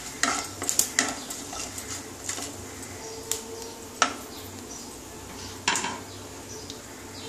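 A wooden spatula scrapes and taps against a non-stick kadai as whole spices are stirred in hot mustard oil, for about the first second and a half. Then the dry red chillies and panch phoron sizzle gently in the oil, broken by a few sharp clicks.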